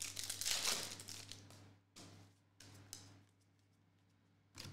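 Foil trading-card pack wrapper crinkling, with a longer rustle at the start, then shorter rustles as the cards are handled and fanned.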